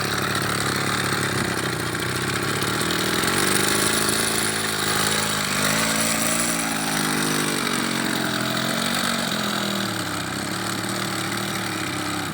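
Small two-stroke TU26 engine of a high-pressure pest sprayer running just after a pull start with the choke pushed back; its speed rises for a few seconds as the throttle is opened, peaks about six seconds in, then falls back toward idle.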